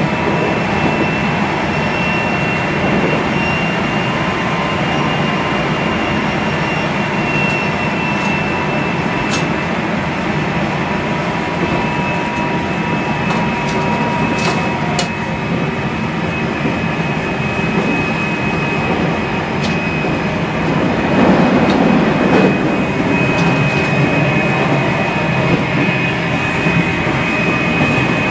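On-board running noise of a JR Central 373 series electric train travelling at steady speed: a steady rumble of wheels on rail with a thin high whine that holds one pitch. A few sharp clicks come in the middle, and the noise swells louder for a couple of seconds about two-thirds through.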